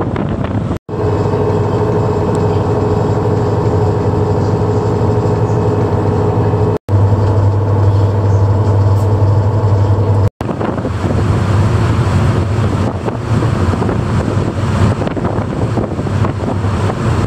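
Engine drone of the high-speed catamaran ferry Ocean Arrow heard inside the cabin: a steady low hum with a higher tone above it, broken by abrupt cuts. About ten seconds in it gives way to wind on the microphone and the rush of the wake on the open deck.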